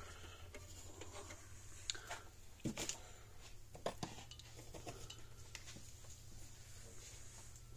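Faint, scattered clicks and taps of small tools and wires being handled during bench work, a few near the middle, over a steady low hum.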